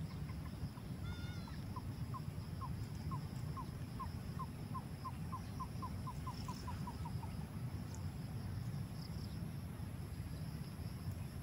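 A bird calling a series of about twenty short, slightly falling notes that come faster and faster, then stop about halfway through, over a steady low rumble.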